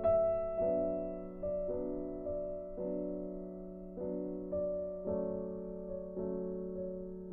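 Background music: gentle piano-like chords, a new chord struck about once a second and each dying away.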